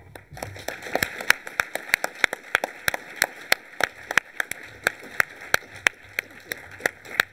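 Audience applauding: a steady patter of many hands, with sharp single claps close to the microphone standing out about three times a second. The applause starts just after the opening and stops near the end.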